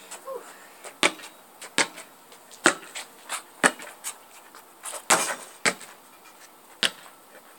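A basketball bouncing on pavement: a series of sharp thuds at uneven spacing, several close together in the middle, then one last thud near the end.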